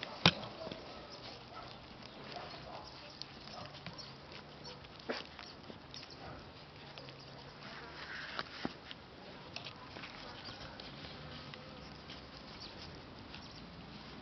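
Siberian huskies moving about, with scattered light taps and clicks of paws and a sharp knock just after the start.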